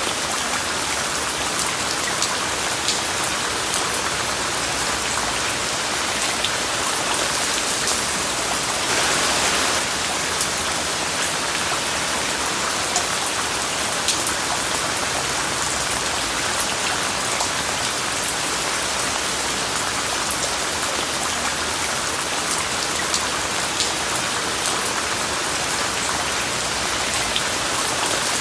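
Steady rain falling, an even hiss with scattered sharp drop hits close by; a slightly louder stretch comes about nine seconds in.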